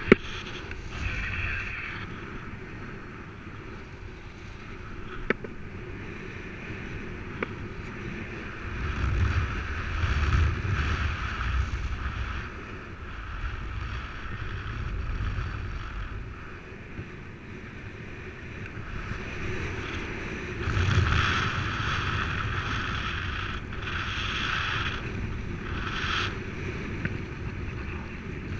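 Wind rushing over the camera microphone of a paraglider in flight, swelling louder about a third of the way in and again about two-thirds through, with a couple of faint clicks.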